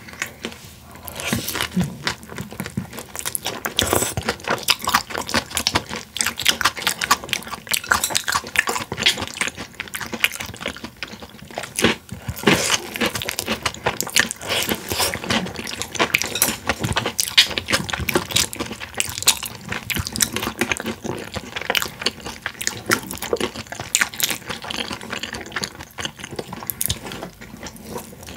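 Close-miked chewing of boneless fried chicken by two people: a dense, continuous run of smacking mouth sounds and small clicks.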